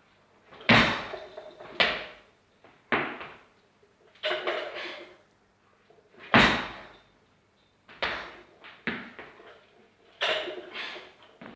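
Repeated jerks with a loaded barbell in bumper plates: sharp thumps and clanks as the lifter's feet strike the platform and the bar and plates rattle on each drive and catch. There are about seven separate impacts, each with a short ring.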